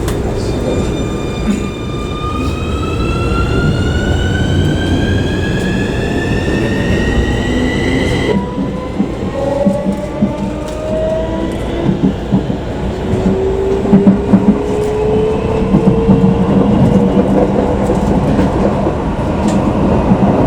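Keikyu New 1000 series electric train heard from inside the car: the inverter and traction motors whine, climbing steadily in pitch as the train accelerates, over the rumble of wheels on rail. The whine's tone changes abruptly about eight seconds in, then a lower whine climbs slowly again.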